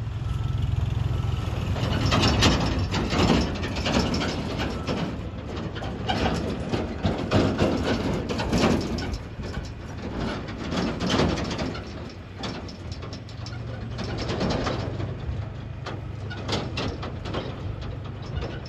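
Heavy diesel engine of construction machinery running steadily, a low hum, with irregular louder rushes of noise over it.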